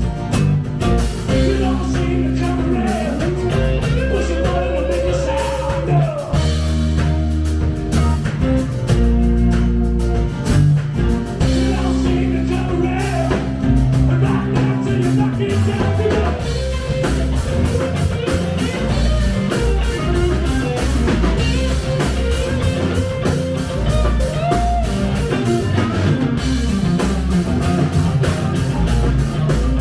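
Live rock band playing, with electric guitar and drum kit over a heavy low end.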